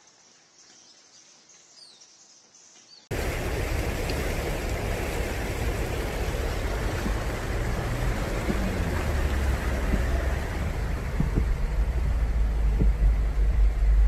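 Faint background for about three seconds, then suddenly loud: floodwater rushing and churning around people wading through it on a flooded road, under a deep steady rumble.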